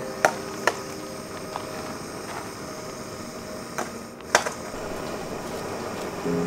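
Jetboil-type canister gas stove burning with a steady hiss, broken by a few sharp clicks and taps as it is lit and handled.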